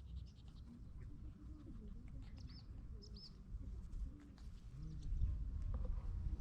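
Wild birds calling in the background, a few short high chirps, over a low rumble on the microphone that grows louder near the end.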